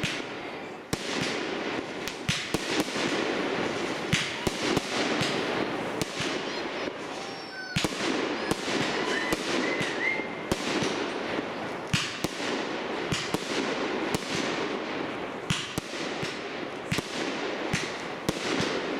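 Fireworks display: aerial shells bursting in a rapid, continuous string of sharp bangs and crackles, with a few brief whistling glides around the middle.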